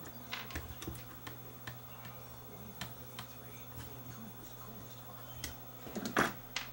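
Small clicks and taps of hands handling a cassette deck mechanism and its small metal and plastic parts on a workbench, with a louder clatter near the end.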